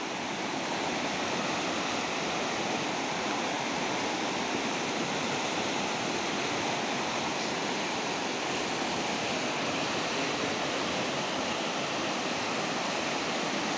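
Fast-flowing river rushing over rocks in rapids: a steady, even sound of churning white water.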